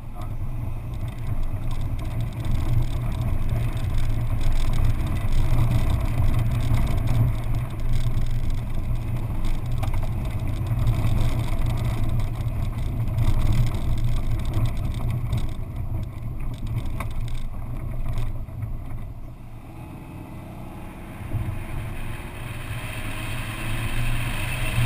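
Car driving over a rough, rocky desert track: a steady low engine-and-road rumble with scattered knocks from the rough ground. The sound eases for a couple of seconds about twenty seconds in, then builds again.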